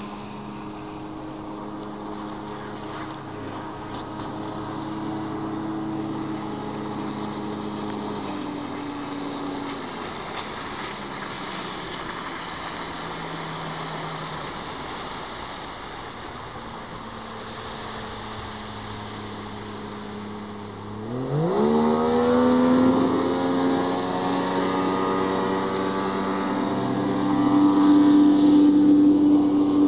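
Outboard motor of a rigid inflatable boat running at speed. Its note sinks and fades about a third of the way in, then rises sharply as the throttle opens about two-thirds of the way in and holds high and loud, loudest near the end.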